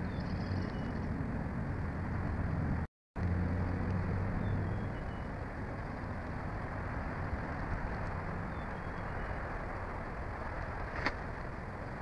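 Steady outdoor rushing noise with a low rumble from a nest-cam microphone, with a few faint short chirps from small birds. The sound drops out briefly about three seconds in, and there is a single sharp click near the end.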